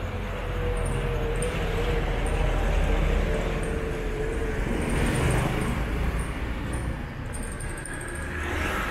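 Street traffic with small motorcycle engines running over a low rumble. A motorcycle-sidecar tricycle passes close by about halfway through, the sound swelling as it goes past.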